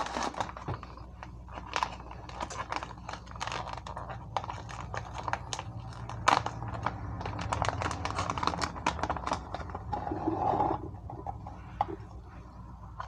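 Plastic packaging of feta cheese crinkling and crackling as it is handled and opened, a run of irregular small crackles.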